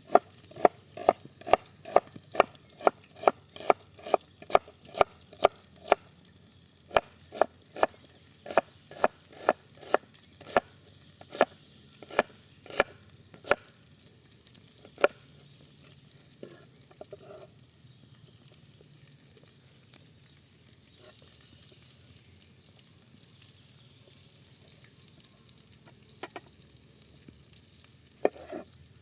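Knife chopping vegetables on a cutting board in quick, even strokes, about two a second, over a faint steady hiss. The chopping stops about halfway through, and only a few scattered knocks follow.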